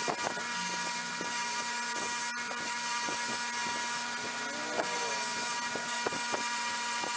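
Power tool motor running steadily with a strong high hiss, steady hum and scattered small clicks, with a couple of brief squeaks about two-thirds of the way through.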